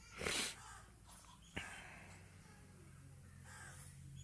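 A crow cawing several times, the first call the loudest, with a single sharp knock about one and a half seconds in.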